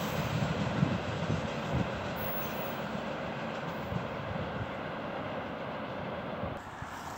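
Freight train of tank wagons rolling away: wheels rumbling and knocking over the rail joints, fading as the tail recedes. The sound drops and changes abruptly near the end.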